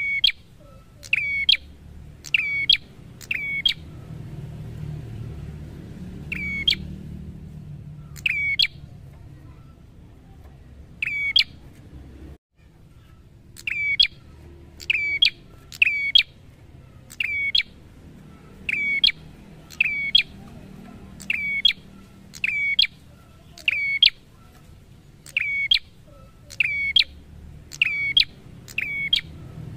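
A caged tailorbird calling: a loud, short, sharp note repeated in runs at about one a second, with a pause of a few seconds near the middle.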